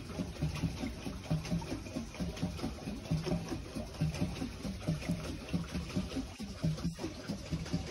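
Pedal boat's paddle wheel churning water in a steady rhythm, about two pulses a second, with water sloshing against the plastic hull.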